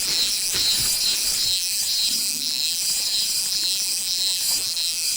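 Spinning reel being cranked against a heavy fish: a steady high whir pulsing about three times a second.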